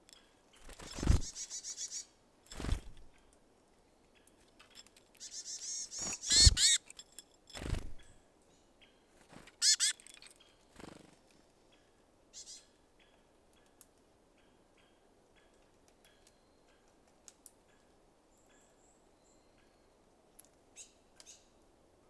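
Small wild birds at a seed feeder: a handful of loud, short thumps and flutters in the first ten seconds or so, mixed with high chirping calls, then only faint scattered taps.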